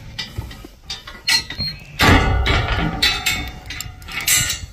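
Steel livestock gate or corral panel clanking and rattling: a run of sharp metal knocks and clinks, with a louder ringing clatter about two seconds in.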